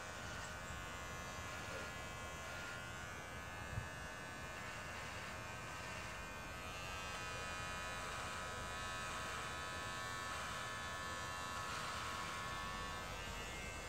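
Electric hair clippers buzzing steadily as they are run over a man's head, shaving off his hair. There is one brief tap about four seconds in.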